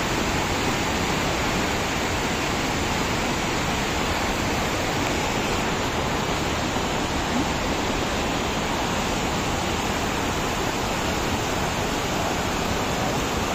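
Rushing river rapids: fast whitewater pouring over rocks in a steady, even rush of water noise.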